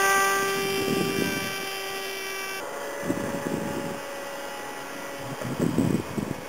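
Homemade foam delta-wing RC plane's motor and propeller whining steadily as it flies overhead. The whine drops sharply in level about two and a half seconds in and carries on fainter.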